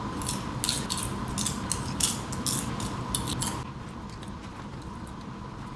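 Popcorn being crunched and chewed close to the mic: a quick, uneven run of crisp crackling crunches, stopping a little past halfway.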